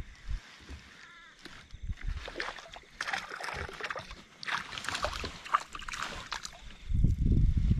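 Small hooked fish thrashing and splashing at the water's surface beside a kayak, heard as a dense run of short splashes. A loud low rumble comes in near the end.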